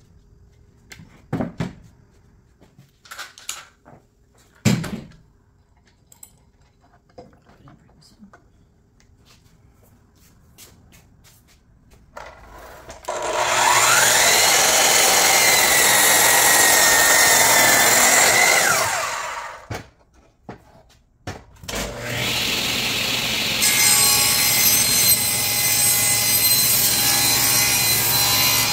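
A few knocks as wooden boards are handled. Then, about halfway in, a miter saw spins up and cuts a cedar board: its motor whine rises, holds steady and falls as it winds down. After a short pause a table saw runs steadily as a cedar board is fed toward the blade.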